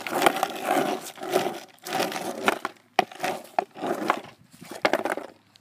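Skateboard wheels rolling over rough asphalt, a gritty rumble that drops away briefly several times, with a few sharp clacks from the board.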